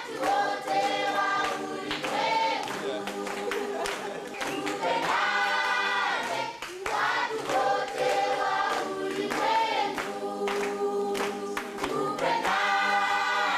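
Tanzanian children's choir singing together, with hand-clapping throughout.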